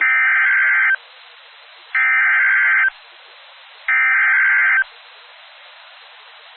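Emergency Alert System SAME header: three identical bursts of shrill warbling digital data tones, each just under a second long and about a second apart, with faint hiss between them. This is the coded header that opens an emergency alert, carrying the event type and the affected areas.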